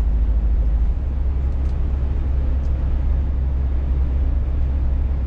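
Steady low drone of a Scania S500 truck's engine heard inside the cab while cruising on a motorway, with road and tyre noise over it. The low note shifts slightly about a second in.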